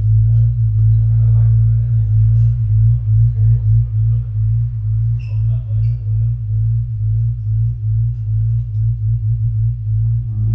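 Improvised music from a guitar, electric bass and drums trio: a loud sustained low drone, steady at first and pulsing rapidly from about halfway through, with faint, sparse higher tones above it.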